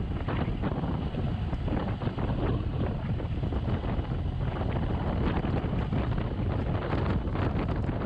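Inside the cab of a 1929 Ford Model A pickup on the move: its four-cylinder engine and drivetrain run steadily under a constant rush of wind noise on the microphone, with many small clicks and rattles.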